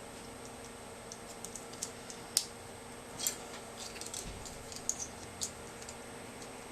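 Light, irregular clicks and taps of small plastic computer-mouse parts being handled and fitted together, with a couple of sharper clicks in the middle.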